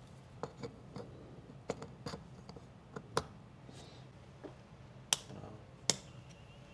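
Small plastic handling noises and a few sharp clicks as an H13 LED bulb's wiring-harness connector is pushed into its socket, the two loudest clicks about five and six seconds in, the connector latching home.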